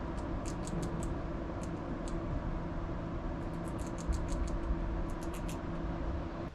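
A squirrel chirping: many short, high calls, some in quick runs, most densely from about three and a half seconds in. A steady low hum runs underneath.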